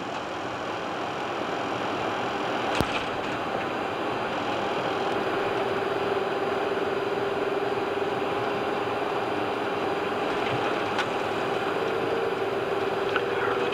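Airbus A330-300 flight deck during touchdown: a single sharp thump about three seconds in as the main gear meets the runway, then a steady rushing rollout noise that grows slowly louder, with a steady hum setting in a couple of seconds later.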